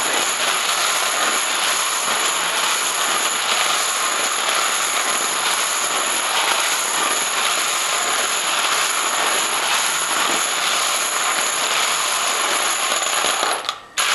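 About 500 rifle brass cases being stirred by hand in a plastic tray to spread freshly sprayed case lube: a dense, continuous jingling clatter of brass on brass, breaking off briefly just before the end.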